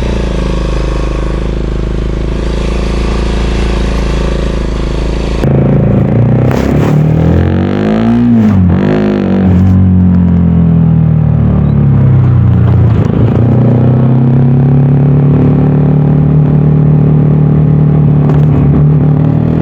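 VOGE 300DS motorcycle's single-cylinder engine and exhaust under way. The sound is a steady low run at first; about five and a half seconds in, the engine note climbs and drops through a gear change, then settles into a steady cruise.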